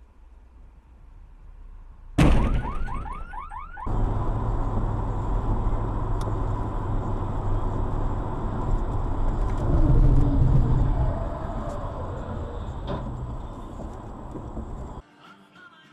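Dash-cam audio: a sudden loud impact about two seconds in, followed briefly by a few wavering tones. Then comes the steady road noise and rumble of a car driving on a wet highway, which swells around ten seconds in and cuts off abruptly near the end.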